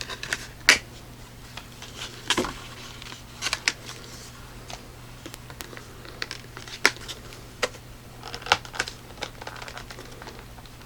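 Flashlight packaging being opened and handled: irregular clicks, taps and short scrapes of the box and its insert.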